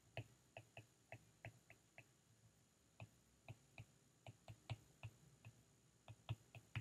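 Faint, irregular light taps and clicks of a stylus on a tablet while handwriting, about two or three a second, with a short lull partway through.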